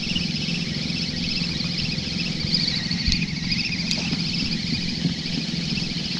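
A small boat engine running steadily with a low, rapidly pulsing drone, over a high pulsing buzz.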